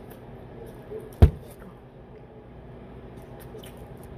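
A single sharp knock about a second in, against faint small clicks and rustling.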